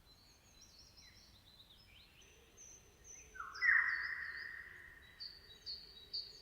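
Several songbirds chirping and singing, short high chirps and whistles overlapping, with one louder, longer call a little past halfway that fades away slowly.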